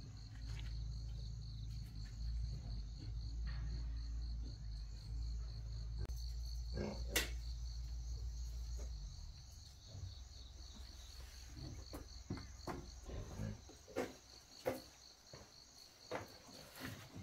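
Insects chirping in a fast, even pulse over a low rumble that fades about halfway through. A sharp click comes about seven seconds in, then scattered light knocks and taps near the end.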